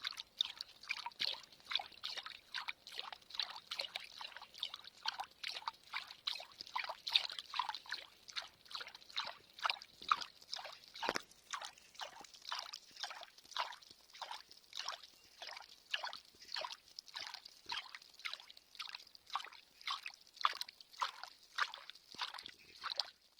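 Small water plinks and drips falling in a quick, slightly uneven rhythm, about two to three a second.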